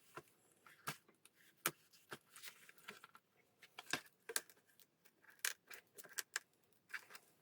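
Scattered small clicks, taps and scrapes of hand tools working at a tablet's glued screen, a dozen or so irregular sharp ticks with brief scraping between them.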